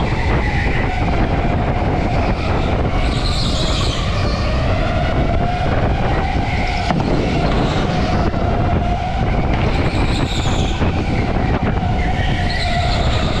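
Go-kart motor running at speed, its pitch rising and falling a little as it accelerates and lifts, over a steady low rumble.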